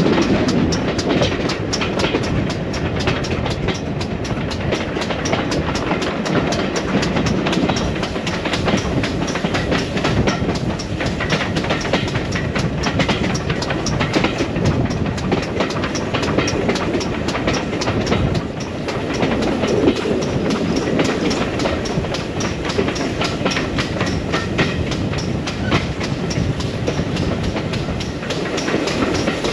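Passenger train hauled by steam locomotive 6990 running along the line, heard from on board a carriage: a steady rumble of wheels on rails with a regular run of clickety-clack clicks.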